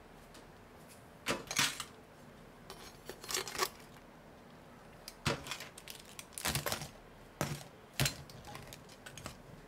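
Stainless steel tongs clinking and scraping against a steamer pot and a metal tray as steamed blue crabs are lifted out, in scattered short clatters with quiet gaps between.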